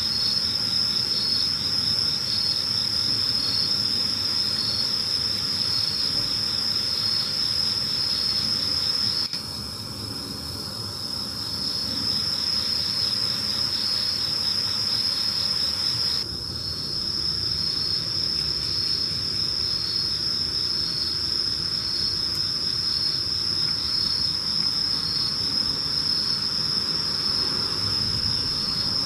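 Chorus of night insects calling: one steady high-pitched trill, with a second call pulsing about three times every two seconds under it.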